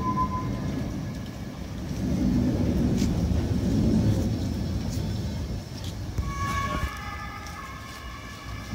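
Historic tram rolling slowly past on depot track, its wheels rumbling on the rails, loudest about two to four seconds in, with a sharp click or two. From about six seconds a steady high squeal of several tones sets in: tram wheels squealing on curved track.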